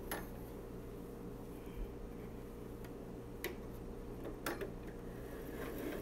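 A few faint, sharp clicks and taps as fingers handle the thread and presser foot of an idle sewing machine, over a steady low hum.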